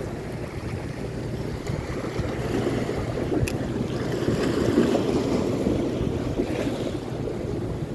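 Sea waves washing against a rocky shore, with wind buffeting the microphone; the wash swells about halfway through. One short click about three and a half seconds in.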